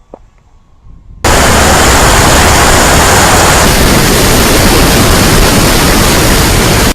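Loud, steady rushing noise from the RC P-40 Warhawk in flight, wind and propeller heard close to an onboard camera and overloading it. It starts abruptly about a second in and cuts off sharply at the end. Before it comes a faint, falling whine of the plane's electric motor.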